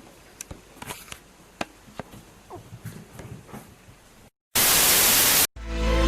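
Faint scattered clicks and taps, then a sudden loud burst of static hiss lasting about a second, followed right after by music starting near the end.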